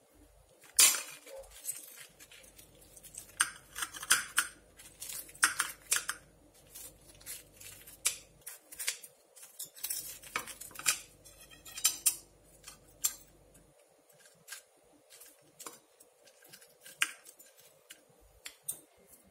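Knife and fork cutting an air-fried breaded chicken breast cutlet on a plate: a string of short crunching cuts through the crisp crust, with the metal clinking and scraping on the plate. The loudest clink comes about a second in.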